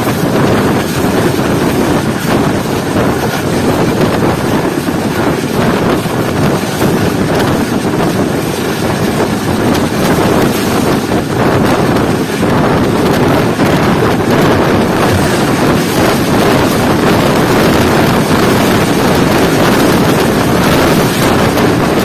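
Loud, steady rush of wind buffeting the microphone, mixed with the running noise of a passenger train's coach wheels on the track, at about 112 km/h.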